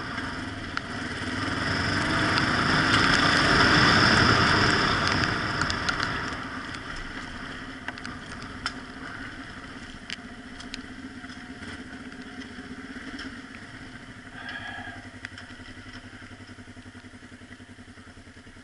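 Motorcycle engine under way on a dirt track, loudest about two to six seconds in, then easing off to a quieter, steady pulse near the end as the bike slows toward idle. Scattered light clicks run through it.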